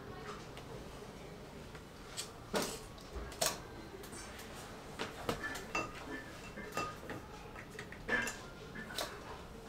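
Handling of small craft tools and a cutting mat on a wooden table: a craft knife set down, the mat slid off the book and put down, a tool jar touched. It sounds as a scatter of separate light clicks and knocks, the sharpest about three and a half and eight seconds in.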